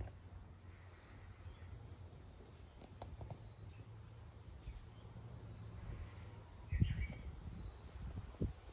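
Short, high trilled chirps from a small calling animal, repeating every second or two, over a low steady rumble. A louder short sound comes about seven seconds in.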